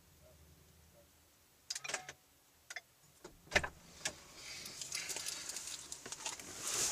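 Clicks and light rattles of things being handled inside a parked car, the loudest about three and a half seconds in, then a jangling rustle that starts about four and a half seconds in and keeps growing.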